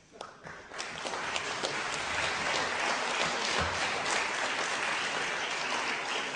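Audience applause: a few scattered claps at first, swelling within about a second into steady clapping from many hands, which starts to die down near the end.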